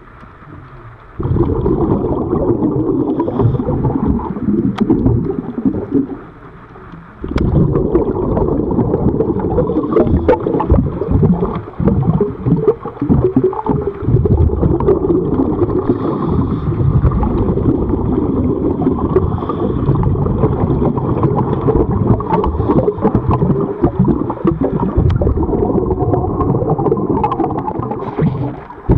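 Underwater rumble and gurgling of water and bubbles against the camera as the diver works along the hull. It starts about a second in, breaks off briefly around six seconds, then carries on.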